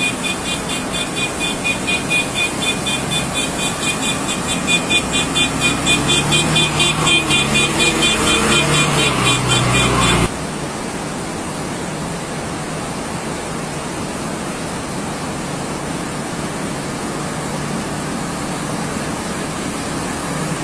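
A bus engine revving as it works through floodwater, with a pulsing high-pitched tone over it. About halfway through the sound cuts abruptly to a steady rushing noise of water and traffic.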